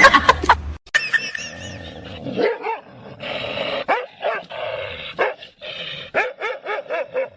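A dog barking in short repeated barks, which come faster in the last couple of seconds.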